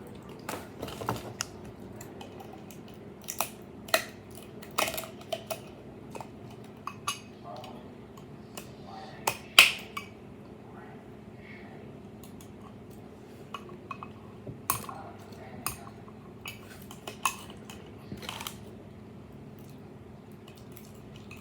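Scattered sharp clicks, knocks and clinks of a freshly sublimated mini tumbler and its wrapping being handled on a work table, the loudest knock about ten seconds in. A low steady hum runs underneath.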